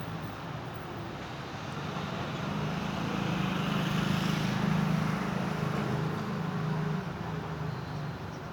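Road traffic: a motor vehicle's engine passes by, its hum and tyre noise growing louder to a peak about halfway through, then fading.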